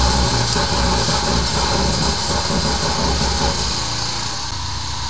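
Engine of a drain-cleaning machine running steadily, with a rushing hiss over a low rumble. About four seconds in, the rumble eases and the sound gets a little quieter.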